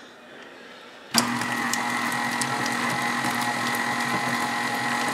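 KitchenAid Artisan stand mixer switched on about a second in, its motor then running at a steady low speed with a whine. The flat beater is creaming butter with sugar and eggs in the steel bowl.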